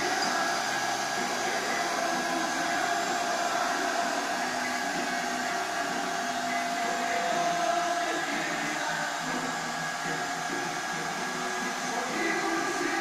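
CNC router running steadily: a constant whirring air noise with a few steady whine tones, one of which fades about eight seconds in.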